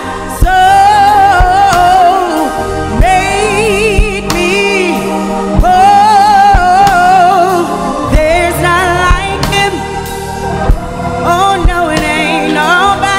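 Live gospel music in church: voices singing long, wavering held notes over instrumental backing, with regular sharp beats underneath.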